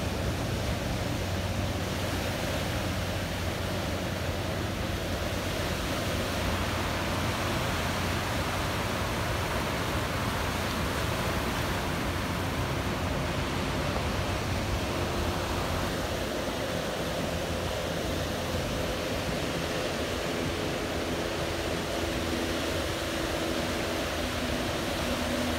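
Steady wash of ocean surf breaking on the beach, an even rushing noise with a faint low hum underneath.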